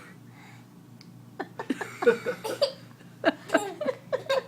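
A young child's voice making a rapid string of short, sharp vocal bursts, starting about a second and a half in.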